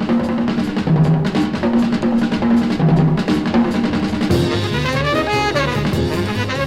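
1955 hard-bop jazz quintet record played from vinyl: a drum-kit passage over low pitched notes, then the horns (trumpet and tenor saxophone) come in with a melodic line about four seconds in.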